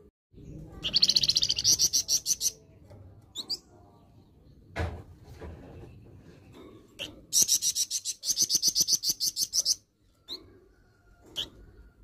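Caged flamboyan songbird giving harsh, rapid rattling calls: two bursts of about nine notes a second, each lasting about two seconds, with single short calls between them.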